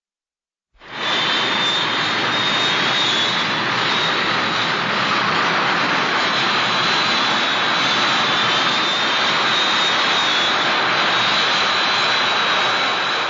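Showa Mechagodzilla film sound effect: a steady jet-engine-like rush with a thin high whine on top, starting abruptly about a second in.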